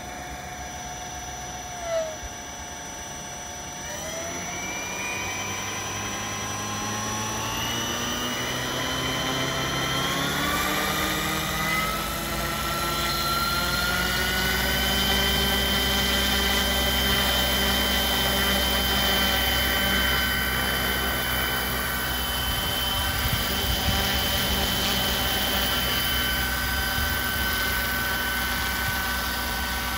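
Electric 1/5 scale Saunders-Roe Skeeter RC helicopter spooling up: from about four seconds in its motor and three-bladed rotor give a whine that rises in pitch over some ten seconds, then holds steady at flying speed over a rotor rumble. A brief chirp comes about two seconds in.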